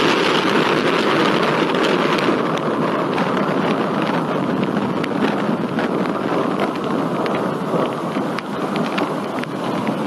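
Steady heavy rain in a thunderstorm, with many sharp ticks of single drops striking close to the microphone.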